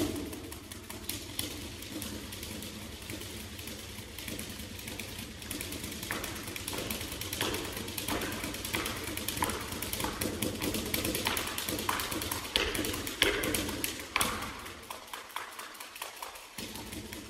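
Free-improvised percussion: irregular sharp taps, clicks and ringing pings on small percussion. It grows denser and louder in the middle, with the hardest strokes a little after twelve seconds, and vocal noises are mixed in.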